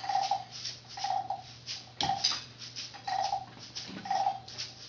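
Children's hand percussion: a scraped, rasping stroke repeated about once a second, each with a short mid-pitched tone and a crisp crackle, made as a sound effect for crunching leaves.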